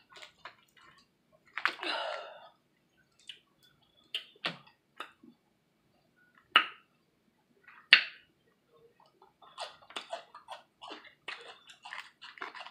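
Boiled crawfish being cracked and peeled by hand and eaten close to the microphone: sharp shell cracks, scattered crackling and wet mouth sounds of chewing, with a denser run of small crackles near the end.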